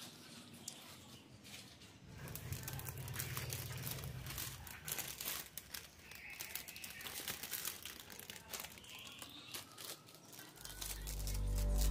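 Thin clear plastic bag crinkling and crackling as it is handled and a burger is slid into it by hand. Music fades in near the end.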